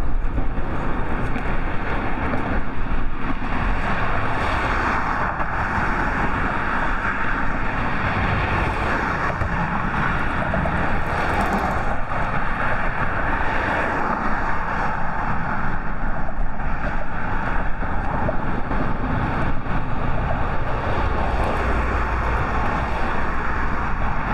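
Steady rushing of a flood-swollen creek running high with a very strong current.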